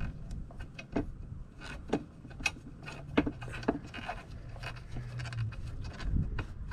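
Scattered small clicks, taps and scrapes of a hand fitting a bolt into a saddlebag mounting bracket up under a motorcycle's rear fender.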